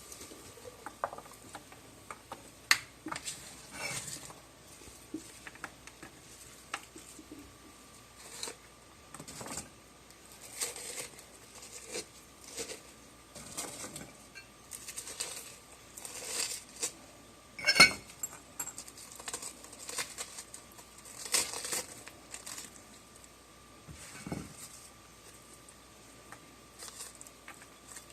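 Irregular soft rustles, pats and light knocks of food and utensils being handled during kitchen preparation, with one sharp, louder clack about eighteen seconds in. A faint steady high hum runs underneath.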